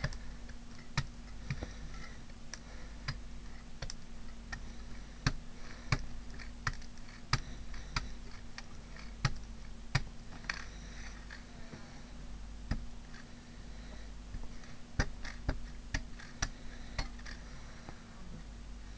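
Light, irregular taps and clicks of a paintbrush dabbing white paint onto a small metal embellishment, a few per second with pauses, over a faint steady hum.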